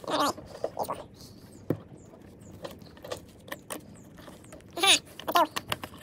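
Light clicks and rattles of a plastic rod-buckle retaining piece being handled and fitted onto its nylon strap, with one sharp click about two seconds in. Short, high-pitched, voice-like sounds come right at the start and again about five seconds in, louder than the handling.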